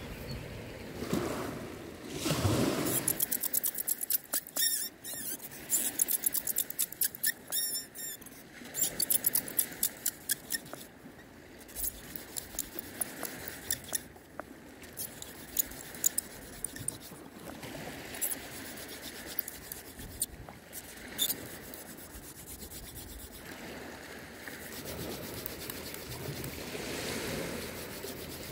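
Wooden hand-drill spindle spun back and forth between the palms, grinding and squeaking in a charred notch of a wooden fireboard to make fire by friction; the rubbing strokes grow stronger near the end. Before it, a run of sharp clicks and taps.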